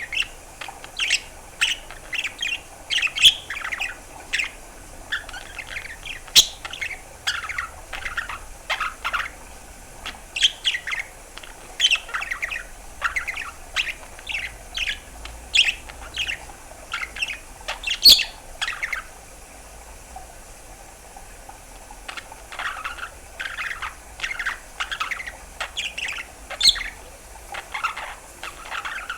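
A pet budgerigar chirping in quick runs of short, sharp calls, with a pause of a few seconds about two-thirds of the way through.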